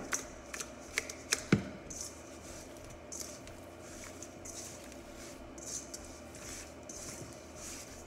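Hands rubbing coarse salt into whole sea fish in a stainless steel bowl, salting them for pla ra. A few sharp clinks and knocks of the metal bowl come in the first second and a half, then a run of gritty swishing strokes, roughly one or two a second.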